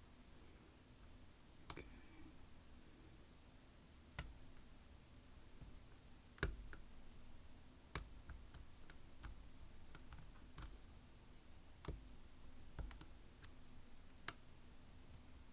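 Faint, sharp clicks of a lock pick and tension tool working the pins of an Assa Abloy hospitality lock, about ten of them at irregular intervals over a faint steady hum.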